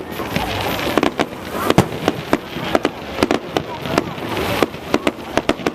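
Fireworks display: a rapid, irregular series of sharp bangs and crackling, several a second, with a low murmur of voices beneath.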